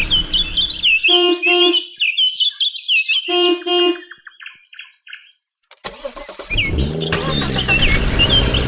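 Vehicle engine running with birds chirping over it. The engine cuts out about a second in, a horn beeps twice in pairs, and after a brief lull near the middle an engine starts up again and runs.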